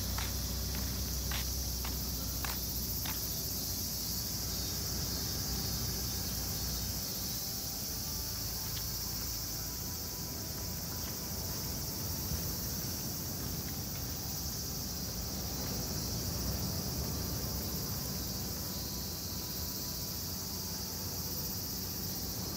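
A steady, high-pitched chorus of insects shrilling in the grass, over a low rumble. A few light footsteps are heard in the first three seconds.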